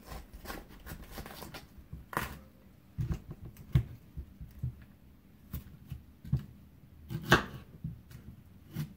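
A raw head of cauliflower being broken and cut into florets with a knife on a cutting board: crisp snapping and crunching of the stalks, with irregular knocks on the board and a few louder ones around four and seven seconds in.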